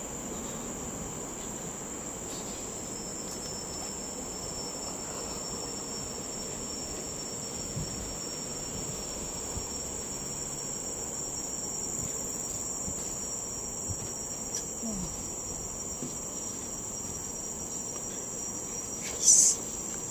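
Steady, high-pitched drone of forest insects. A second steady tone joins a couple of seconds in, and a short, much louder burst comes near the end.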